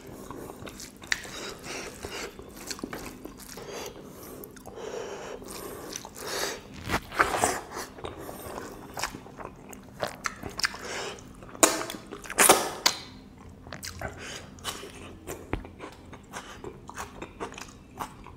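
Close-miked chewing and wet mouth smacks of a man eating pork and rice with his hands, with a few louder smacks about seven and twelve seconds in.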